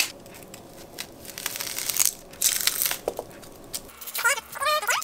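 Dry onion skin crackling and tearing as it is peeled away from a whole onion with a paring knife. Near the end comes a brief high, wavering whine.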